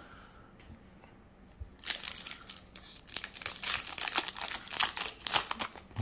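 Foil Yu-Gi-Oh! booster pack wrapper crinkling and tearing as the pack is torn open, starting about two seconds in with a dense run of crackles.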